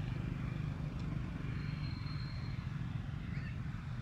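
Steady low rumble of outdoor background noise, with a faint thin high tone for about a second near the middle.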